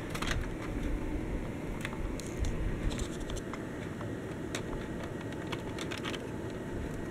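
Plastic toy train on Lego wheels rolling along plastic Lego track: a low steady rumble from the wheels with scattered light clicks as it runs.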